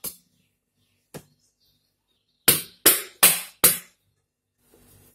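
Hands tapping the bottom of an upturned metal cake tin on a wire rack to loosen the baked cake. There are two lighter knocks, then four loud taps in quick succession about two and a half seconds in.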